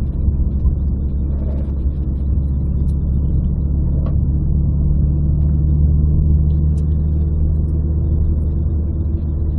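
Renault Clio RS 172's 2.0-litre four-cylinder engine and road noise heard inside the cabin, a steady low drone at an even speed.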